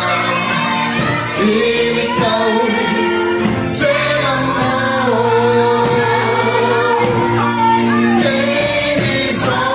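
A group singing a worship song together, mostly women's voices, over electronic keyboard accompaniment, with long held notes.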